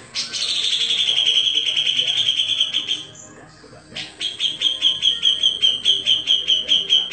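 Cucak jenggot (grey-cheeked bulbul) singing: a long, fast trill that falls slightly in pitch for about three seconds, then after a brief pause a run of sharp repeated notes at about five a second.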